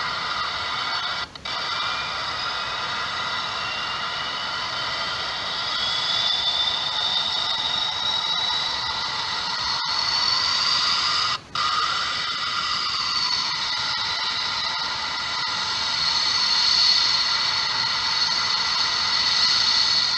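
Recorded jet engine sound played through the small speaker of a Make Them Move sound-and-light module in a scale model jet: a steady turbine whine that rises slowly in pitch over the first ten seconds. The sound cuts out briefly twice, about a second and a half in and again about eleven and a half seconds in, the module's sound dropout fault.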